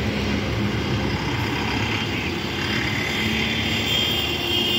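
Diesel bus engine running as the bus pulls away and drives past, a steady low rumble with a high whine growing stronger in the second half.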